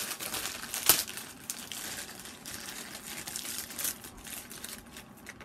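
Packaging crinkling and crackling as it is handled and pulled open by hand, with a sharp crackle about a second in, then sparser rustling.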